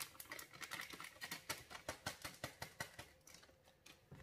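Paper sachet of baking powder being shaken and tapped over a bowl of flour: a quick, faint run of crisp paper crackles and taps, about four or five a second, that dies away after about three seconds.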